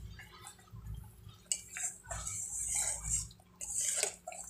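Long spatula stirring thick, boiling jaggery syrup in a metal pan: irregular scrapes and wet bubbling, busiest from about a second and a half in.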